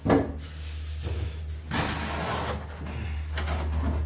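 A sharp knock, then stretches of scraping and rubbing as a rusted factory exhaust section is worked loose from its hangers, over a steady low hum.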